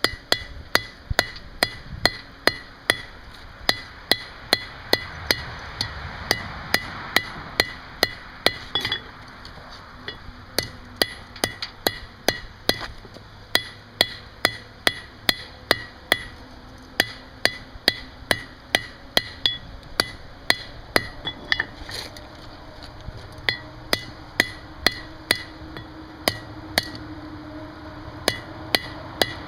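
Hand hammer striking hot steel on an anvil in steady runs of about two to three blows a second, each blow with a short metallic ring, broken by a few brief pauses. The blows are drawing out and tapering the steel of the neck.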